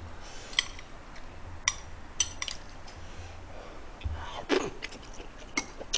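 Metal chopsticks clicking sharply against a plate several times while a person eats, with soft chewing and a breath about two-thirds of the way in.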